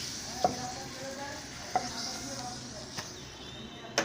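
Eggplant pieces sizzling in hot oil in a frying pan while they are lifted out with a spatula, which clicks against the pan about four times.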